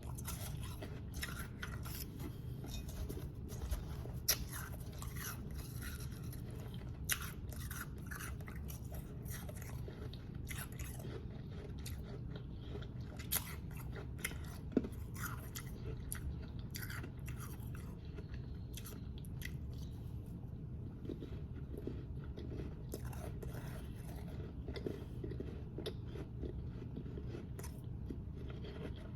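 Close-up chewing of powdery snow ice: irregular crunches and crackles, with a few louder snaps of biting. A steady low hum lies underneath.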